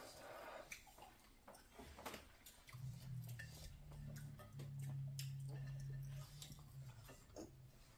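Faint table sounds of a meal being eaten: scattered light clicks and clinks of plates and utensils, and chewing. A low steady hum comes in about three seconds in and fades out about a second before the end.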